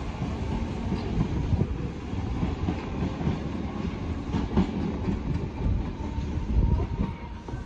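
Merseyrail Class 508 electric multiple unit pulling away, its wheels knocking irregularly over the rail joints under a steady rumble, with a faint steady tone above it.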